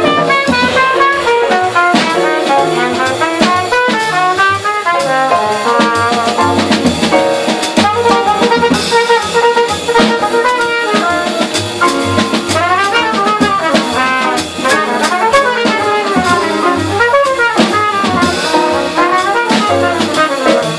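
Live small-group jazz: a cornet solo of quick, running phrases over walking upright bass and a drum kit keeping time on the ride cymbal and drums.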